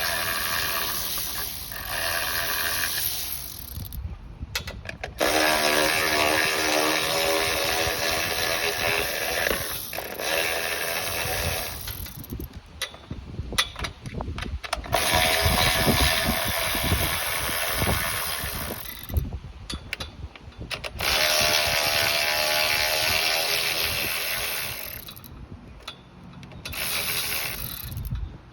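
A power tool running in four bursts of a few seconds each, with clicking and knocking between the bursts, during work on a generator with a stripped bolt.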